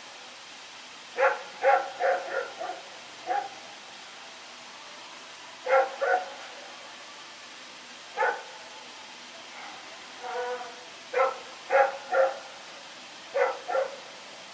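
Belgian Malinois barking at night: about fourteen sharp barks in irregular bursts of one to five, with a softer, drawn-out sound about ten seconds in. A steady hiss runs underneath.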